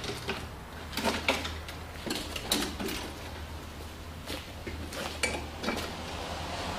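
Walk-behind lawnmower being wheeled and tipped up onto its back, its metal deck and handle clanking and rattling in a string of sharp knocks, over a steady low hum.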